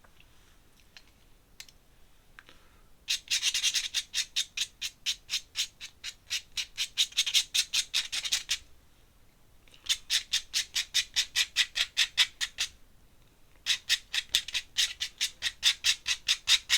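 Dip-pen nib scratching across paper in quick, evenly spaced hatching strokes, about five or six a second. The strokes come in three runs with short pauses between, starting about three seconds in.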